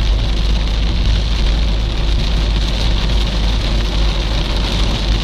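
Steady low rumble of a car driving on a wet road, heard from inside the cabin, with heavy rain hitting the windshield and body.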